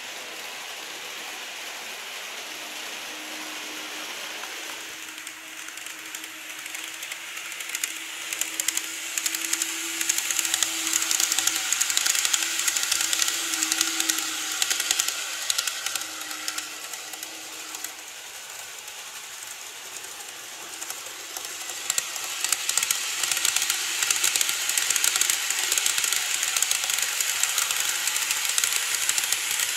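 Model trains running along plastic viaduct track: first a JR Kyushu 813 series 200 model, then a 787 series Tsubame model, each passing close by with a dense clicking rattle of wheels on the rails. A steady motor hum sits under the first pass.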